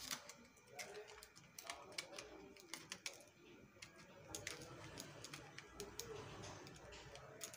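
Faint, irregular small clicks and taps of plastic being handled: a replacement LCD backlight strip being worked into the display module of a Janome Secio 8200 sewing machine.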